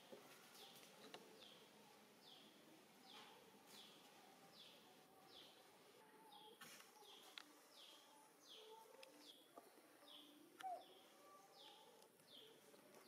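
A bird faintly calling the same short, falling note over and over, about three notes every two seconds, with a short pause near the middle. A brief squeak about ten and a half seconds in, and a few soft clicks.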